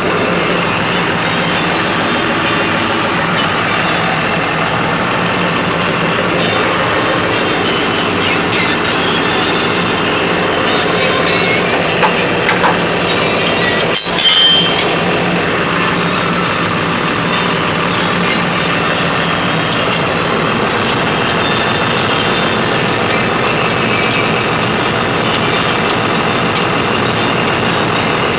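An engine running steadily at idle, with a short loud knock about halfway through.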